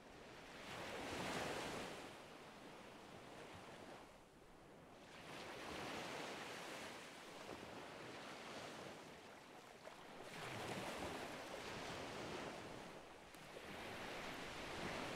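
Slow swells of rushing noise that rise and fall about every four to five seconds, like waves breaking and drawing back.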